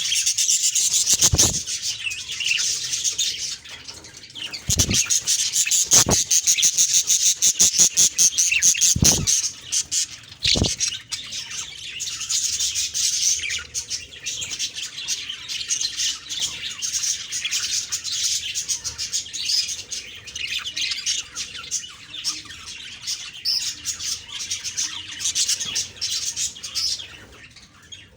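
Budgerigars warbling and chirping in a rapid, continuous high-pitched chatter, with about five sharp clicks or taps in the first half.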